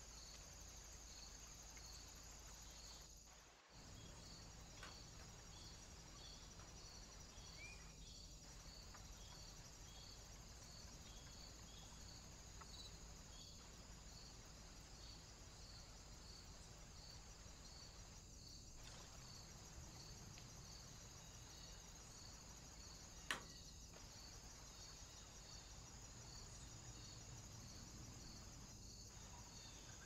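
Near silence: faint woodland background hiss with a faint high chirp repeating about once a second, a couple of brief faint bird chirps, and one sharp click about three-quarters of the way through.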